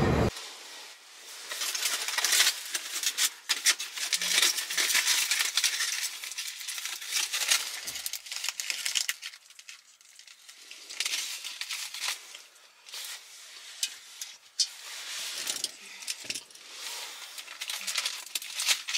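Crinkling and rustling of a clear plastic food wrapper handled while eating, in spells of crackling separated by short pauses.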